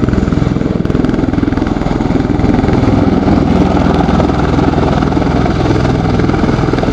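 MV-22 Osprey tilt-rotor with its nacelles tilted nearly vertical, slowing into a hover: the two Rolls-Royce AE 1107C turboshaft engines and big proprotors make a steady, loud, rapidly pulsing thrum.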